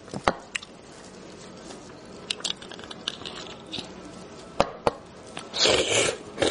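Sharp clicks and taps of cooked beef marrow bones being handled with plastic-gloved hands, then a loud slurp near the end as marrow is sucked out of a bone at the mouth.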